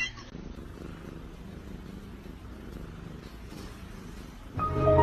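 Domestic cat purring, low and steady. Music comes in loudly near the end.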